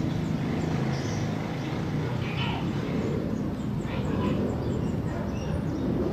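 Steady low rumble of a Boeing 747-400F's four jet engines as it flies over on approach, with scattered short high chirps above it.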